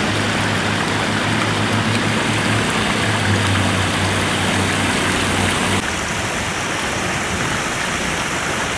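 Steady rush of water flowing over a concrete river bank, with a low hum under it for the first six seconds or so; the rush drops slightly in level about six seconds in.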